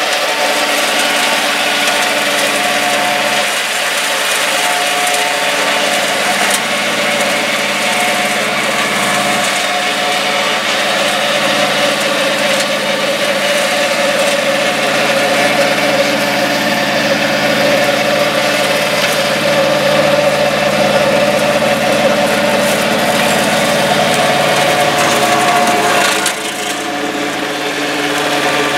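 Mini crawler tractor's two-cylinder 954 cc diesel engine running under load while it drives a Zanon TML 115 flail mower, which shreds grass and brush with a steady whirring hum. The sound dips a little near the end.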